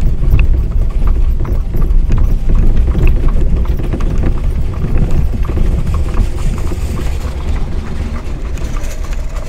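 Horse hooves clip-clopping on an asphalt road over the steady low rumble of a horse-drawn buggy's wheels, with a second horse and two-wheeled cart passing close by; the sound eases off a little in the second half.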